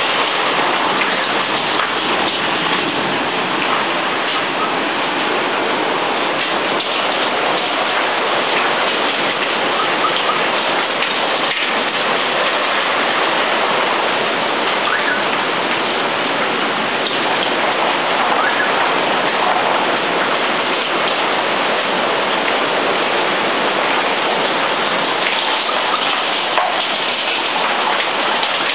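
Torrential rain pouring down in a violent windstorm, a loud, steady hiss that never lets up.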